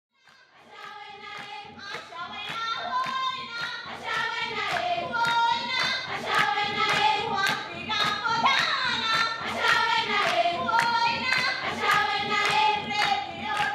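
A group of women singing together in chorus to steady rhythmic hand clapping, fading in over the first few seconds.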